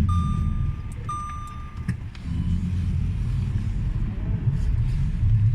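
Lada Vesta manoeuvring to park, heard from inside the cabin: a steady low running rumble, with an electronic warning beep sounding about once a second that stops about two seconds in.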